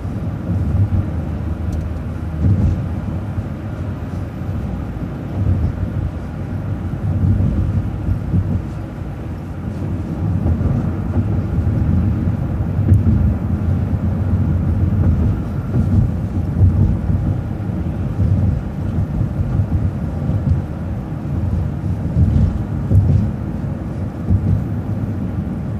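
Steady low rumble of a city bus under way at road speed, engine and tyre noise swelling and easing a little.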